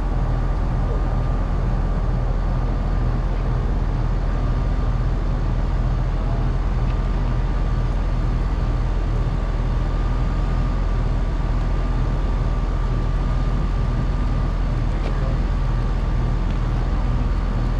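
Houseboat motor running steadily: a deep, even drone with a thin steady whine above it.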